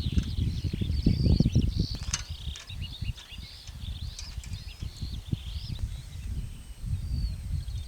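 Small birds chirping and twittering, with many quick rising and falling calls. Underneath is a louder, uneven low rumble, strongest in the first couple of seconds, and a single sharp click about two seconds in.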